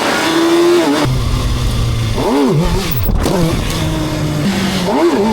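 Kawasaki ZX-6R's 636 cc inline-four engine revving. It holds steady revs, with quick throttle blips that rise and fall in pitch about halfway through and again near the end.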